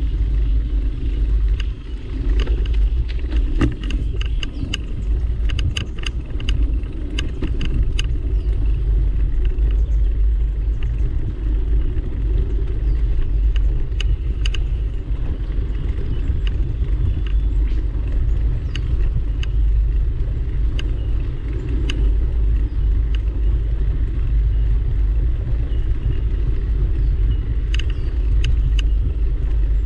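Steady low rumble of walking and mount vibration on a body-worn action camera's microphone, with scattered sharp clicks and ticks, thickest in the first few seconds and again near the end.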